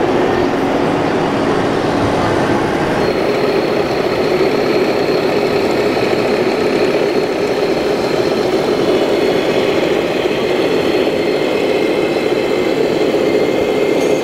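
Steady truck-engine sound from a radio-controlled Volvo FH heavy-haulage tractor, with a thin high whine joining in about three seconds in.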